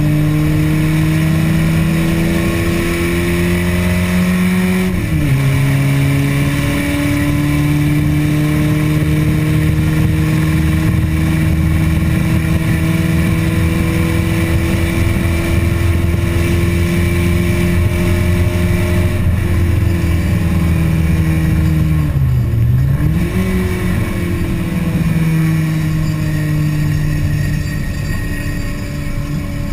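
Ford Mk2 Escort's 2-litre Pinto four-cylinder engine under hard acceleration, heard from inside the stripped race cabin. The pitch climbs, drops sharply at a gear change about five seconds in, then climbs slowly for a long stretch. Around twenty seconds in it falls away, dips low, and picks up again.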